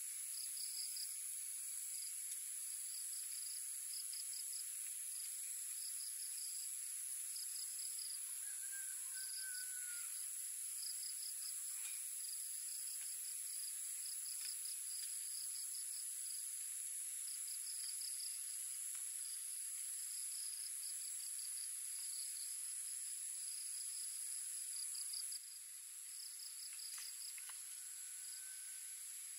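Dusk insect chorus: a steady high-pitched drone with trills repeating in short pulsed bursts about once a second.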